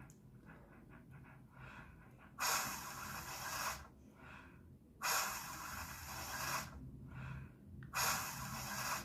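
Heavy breathing: three loud, drawn-out breaths about two and a half seconds apart, with fainter breaths between them.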